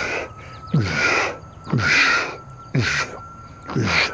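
A bird giving five harsh, cawing calls, about one a second, each about half a second long.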